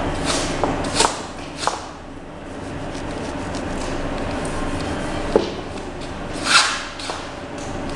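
Steady workshop hum with a faint constant tone, broken by several short hissing puffs; the longest and loudest comes about six and a half seconds in.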